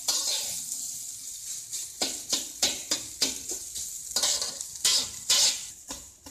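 Fried rice being stir-fried in a hot stainless steel wok: a steady sizzle, with a spatula scraping and tossing the rice against the metal in quick strokes, about three a second after the first couple of seconds. The stirring dies away near the end.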